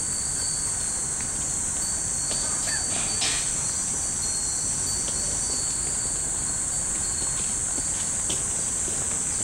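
Japanese fūrin wind chimes tinkling now and then as the breeze moves them, with a sharper ring about three seconds in. Under them runs a steady high buzz of cicadas, which is the loudest sound.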